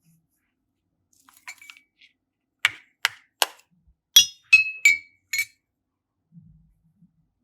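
Small hard objects clicking and clinking together: three sharp taps, then four short clinks, each with a brief ringing tone.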